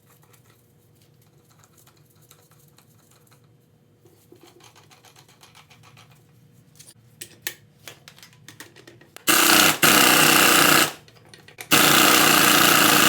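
Small clicks of tools being handled, then a power impact wrench hammering on the engine's rotor nut in two loud bursts: the first lasts about a second and a half, about nine seconds in, and the second starts near the end.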